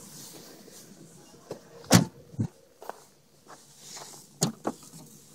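A handful of short, sharp knocks and clicks, about six in all, the loudest about two seconds in and a close pair near the end, over a quiet background.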